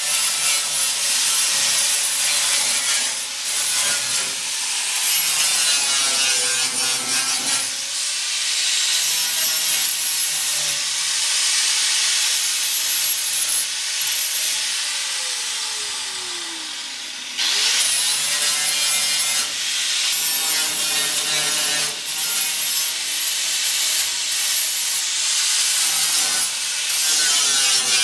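Angle grinder grinding down welded steel seams on a pickup truck bed, a loud steady hiss with a high whine. About halfway through it lets off and winds down with falling pitch, then starts up again and carries on grinding.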